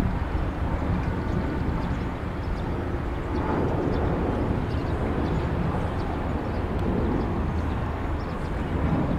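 Jet engines of a Lion Air wide-body airliner climbing out after takeoff: a steady low rumble that swells slightly about three seconds in.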